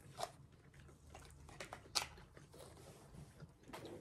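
Quiet mouth sounds of chewing rice, with a few sharp clicks of metal forks against a foil takeaway container, the loudest about two seconds in.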